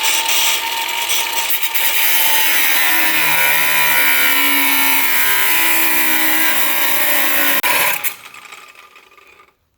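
Power grinder grinding down a leftover steel stub in the grill's aluminium housing, running steadily under load for about eight seconds. It is then switched off and spins down over the next second or so.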